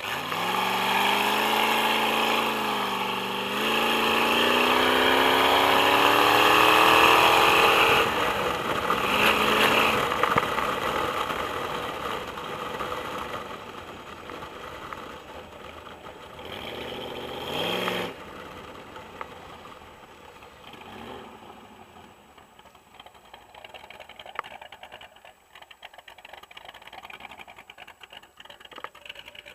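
Boss Hoss motorcycle's 8.2-litre Chevrolet big-block V8 pulling hard under acceleration. It comes in suddenly, dips briefly, then rises steadily in pitch for several seconds before dropping back. One more short rising rev cuts off sharply about two-thirds of the way through, and the engine then runs much quieter.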